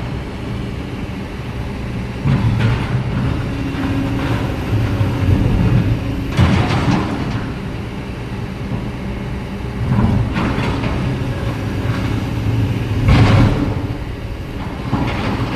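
Excavator's diesel engine running steadily, its low drone swelling and easing as it works. Four louder, harsher bursts of noise stand out in the second half.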